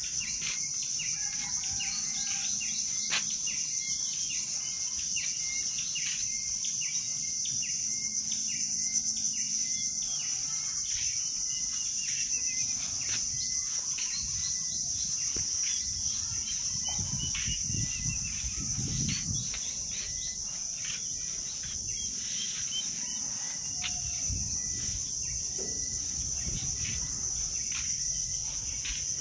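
Steady high-pitched drone of insects, overlaid with many short, repeated bird chirps that come thickest in the first half. A low rumble comes up about two-thirds of the way through.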